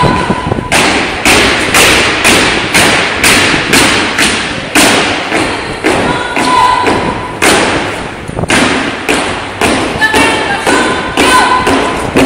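Marching squad's boots stamping in unison on a gymnasium floor, about two heavy stamps a second, each echoing briefly in the hall.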